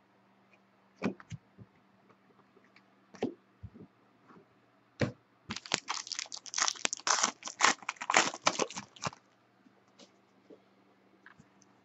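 Foil wrapper of a trading-card pack being torn open and crinkled. A few separate knocks come first, then dense crackling of the foil from about five and a half seconds in to about nine.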